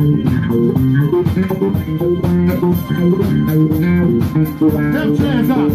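Electric bass guitar playing a busy melodic solo line, with a drum kit keeping time under it and cymbals struck in a steady beat.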